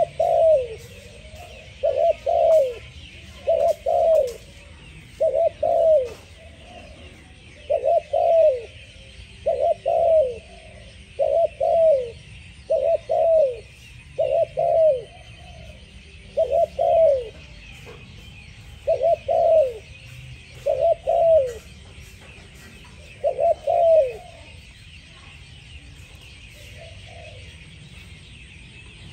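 Spotted dove cooing: about a dozen short calls, each a quick pair of falling coos, repeated every second or two. The cooing then stops, with one faint coo near the end.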